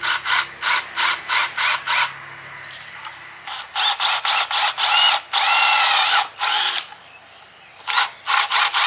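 Cordless drill boring a hole into a very dense teak board, run in short trigger bursts about three a second. After a pause it gives a longer run of about a second with the motor's pitch dipping and rising under load, then pauses again and goes back to short bursts near the end.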